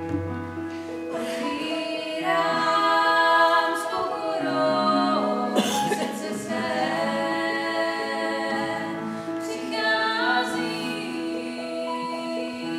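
Choir of girls and women singing, with a Casio electronic keyboard holding sustained chords underneath.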